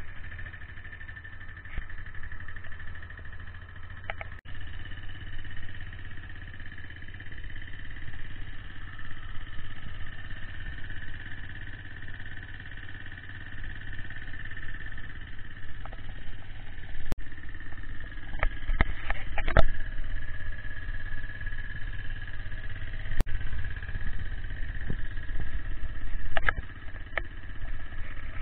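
Kawasaki Eliminator 125's single-cylinder four-stroke engine idling steadily, with a few sharp knocks and clicks in the second half.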